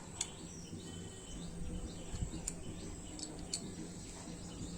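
Quiet background with faint bird chirps over a steady low hum, and a few light clicks spread through it.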